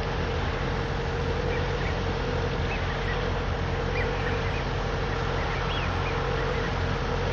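Steady drone of a boat's engine, a constant hum, with faint short bird calls scattered over it.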